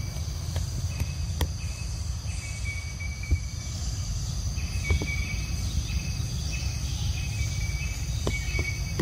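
Insect chorus in forest undergrowth: a steady high-pitched drone with short chirps repeating every second or so, over a low rumble and a few faint clicks.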